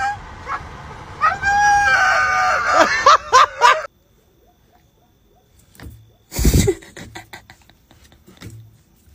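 Dog howling in long wails that rise and fall in pitch, stopping abruptly about four seconds in. After that it is much quieter, with one sharp thump about six and a half seconds in and a few light knocks.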